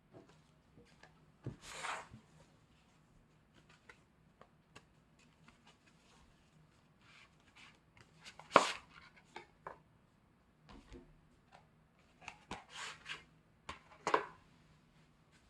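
A CD album package being unboxed and handled: scattered taps, clicks and short rustles. The loudest is a sharp tap about halfway through, with a cluster of taps near the end.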